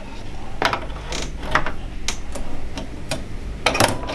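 Irregular small clicks and soft ticks from hand-threading a sewing machine's top thread through its plastic guides and tension, about nine in all, with two louder clicks close together near the end.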